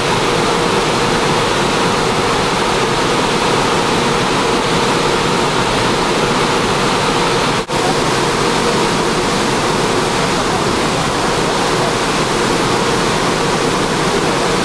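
Steady rushing of water and wind aboard a moving boat, with a faint steady hum under it. The sound cuts out for an instant about halfway.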